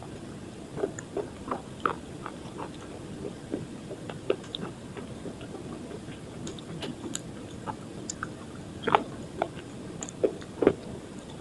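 Slate pencil coated in sun-dried multani mitti (Fuller's earth) paste being bitten and chewed close up, with irregular sharp crunches and cracks a few times a second.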